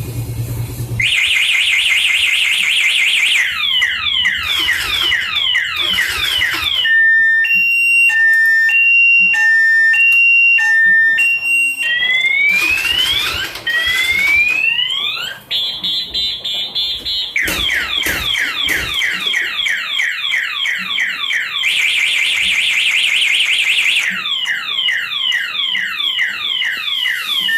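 Motorcycle anti-theft alarm siren cycling through its tones: a fast warble, rapid falling chirps, a two-tone hi-lo about twice a second, rising whoops, then warble and falling chirps again. About a second in, the idling engine stops just as the siren starts, the alarm's anti-snatch mode cutting the engine and sounding the siren.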